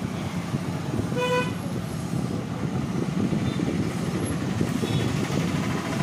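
Steady road traffic noise, with one short vehicle horn toot about a second in.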